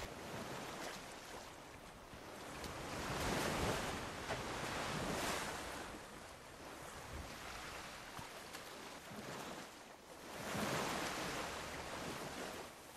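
Small waves washing onto a sandy beach, a steady hiss of surf that swells louder twice, about three seconds in and again near the end.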